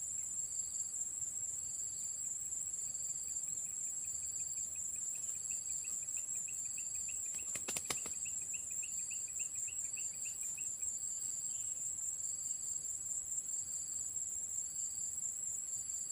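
Field insects: a steady high-pitched drone with a cricket-like chirp repeating about once a second, joined by a fast pulsing trill from a few seconds in until about 11 seconds. About 8 seconds in comes a brief flurry of wingbeats as the rooster flaps.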